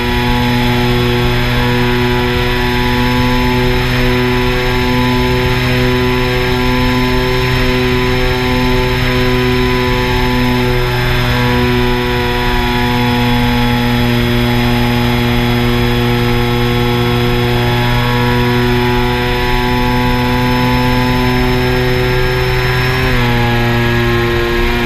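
A motor running close up at a steady speed, its pitch holding constant with a slight dip just before the end.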